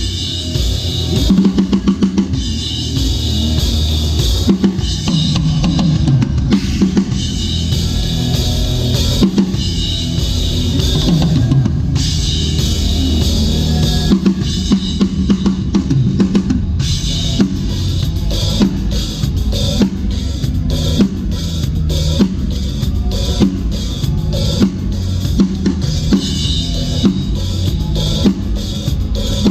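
Drum kit played through a song's groove, with bass drum, snare and cymbals, the strokes coming quicker and more evenly in the second half.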